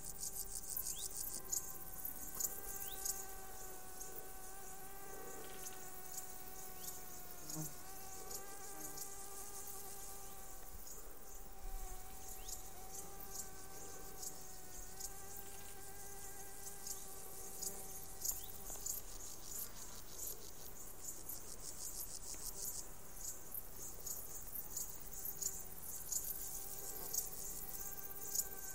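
Insect sounds in summer grass: the steady buzzing hum of a flying insect's wings, wavering in pitch and fading now and then, over rapid high-pitched chirping of grasshoppers and crickets in repeated bursts.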